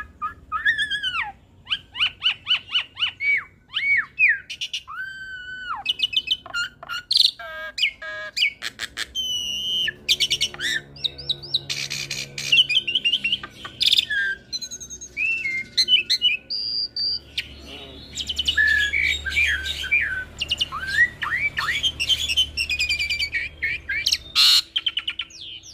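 A jalak hybrid, Asian pied starling × myna (Jalak Suren × Jalak Nias), singing a long, varied song. It mixes clear whistles that slide up and down, quick chattering trills and harsh squawky notes, with short pauses between phrases.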